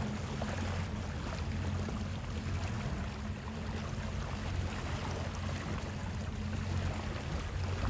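A sailing yacht's inboard diesel engine running steadily while motoring slowly, a low drone, with water washing along the hull.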